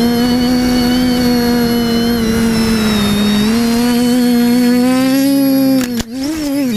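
The brushless TBS 1000KV motors of a TBS Discovery Pro quadcopter whining at one steady pitch with its overtones, recorded on board. The pitch sags a little about three seconds in and rises again, then briefly drops sharply with the level near the end before picking back up, as the throttle is cut and opened again.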